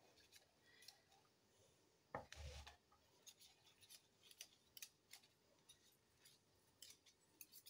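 Faint clicks and scrapes of a metal spoon against a wire whisk and the bowl as thick cookie dough is scraped off the whisk. One louder bump and rustle comes about two seconds in.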